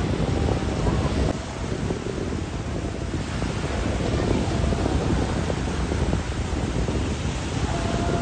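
Small sea waves washing and breaking in the shallows, with wind rumbling on the microphone.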